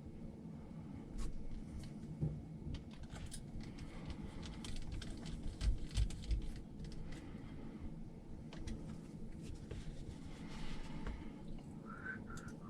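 Hands handling small parts and tools on a workbench: irregular light clicks, taps and rustles over a low background rumble.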